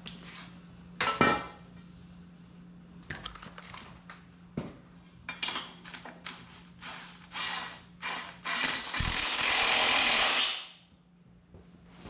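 Hand tools and metal parts clinking and knocking as a tractor transmission is worked on, then a loud steady hiss lasting about two seconds that cuts off sharply near the end.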